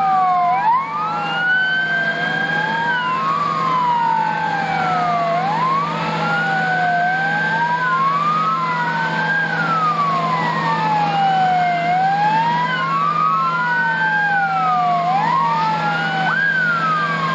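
Emergency vehicle sirens wailing, at least two of them out of step, each slowly rising and falling in pitch, over a steady low hum.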